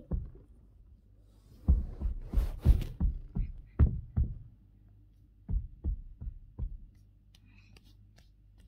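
Irregular soft thumps and rubbing right at the microphone, from a baby's hands patting and bumping at the phone and the surface it stands on.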